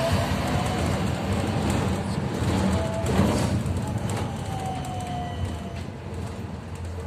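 Ride noise inside a Bogdan T901 trolleybus under way: a steady rumble of road and cabin noise with a low hum and a faint electric whine that slides in pitch. It is a little louder about three seconds in and eases off toward the end.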